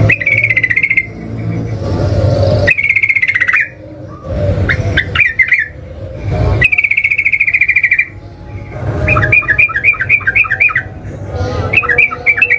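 Yellow-vented bulbul (trucukan) singing loud, bubbly phrases in bursts of about a second each. In the last few seconds it breaks into a fast run of repeated notes.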